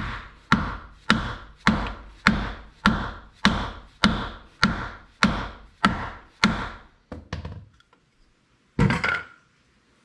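Mallet striking a wooden block held against a Vault oil-bath hub cap, driving the cap into the trailer hub: about a dozen even blows, nearly two a second, then two lighter taps and one more knock.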